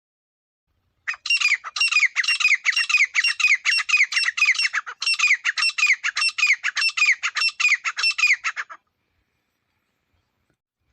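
Teetar (partridge) calling in a fast run of harsh notes, about four a second, each dropping in pitch. It lasts about eight seconds with a brief break in the middle, the kind of recorded call played to lure teetar when hunting.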